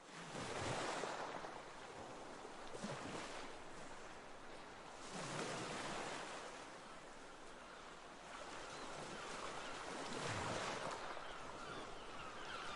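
Sea water rushing and washing, swelling and fading in several surges.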